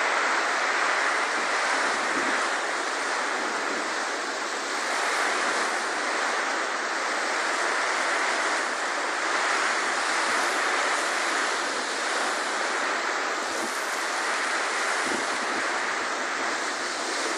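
Torrential rain pouring down steadily, a dense even hiss of water with wind driving it.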